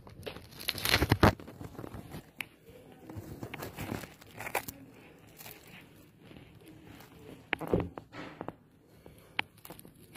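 Irregular metallic knocks, crashes and crackles as parked motorcycles are struck and shoved over by a riot policeman. The loudest clatter comes about a second in, another follows near eight seconds, and a single sharp knock sounds shortly before the end.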